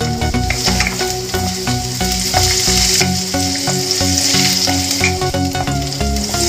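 Chopped ginger and garlic sizzling in hot oil in a non-stick kadai, stirred round with a wooden spatula. Low held tones that change pitch every fraction of a second sound alongside the sizzle.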